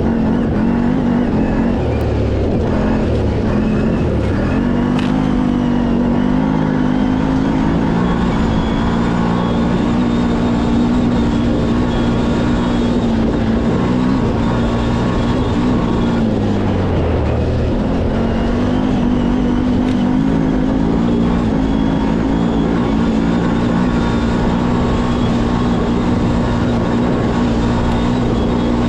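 CFMoto 1000 ATV's V-twin engine running hard at high revs, with the pitch dropping and climbing back twice, about four seconds in and again about sixteen seconds in.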